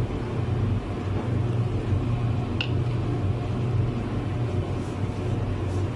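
Steady low hum and rumble of background machinery, with one short click about two and a half seconds in.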